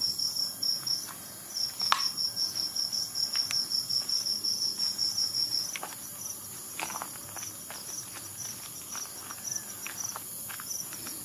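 Cricket chirping in a fast, even pulsing trill that pauses briefly about a second in and turns softer about six seconds in, with a few scattered clicks.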